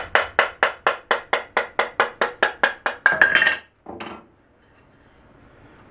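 Mallet tapping rapidly, about five blows a second, knocking a rail's stopped dovetail out of its socket in a wooden leg. The taps stop about three seconds in, followed by a brief clatter and one last knock as the joint comes free.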